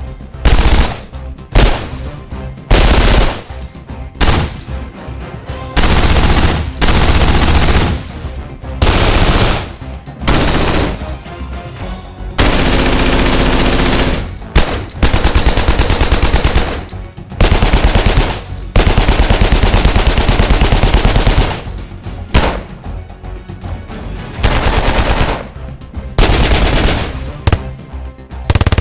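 Light machine gun firing a series of bursts: some are short strings of a few rounds, others are long continuous bursts of two to three seconds, with brief gaps between them.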